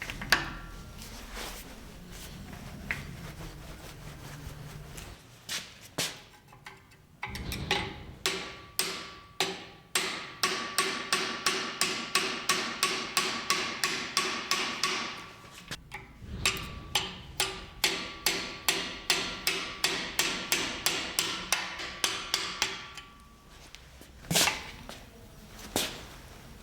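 A hammer striking metal in two long steady runs of about two to three blows a second, each blow leaving a ringing tone, with a few separate knocks before and after.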